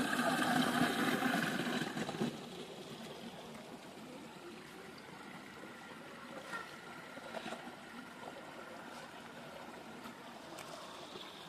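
Shallow stream water trickling and running steadily. It is louder for the first two seconds, then drops to a quieter, even flow with a few faint ticks.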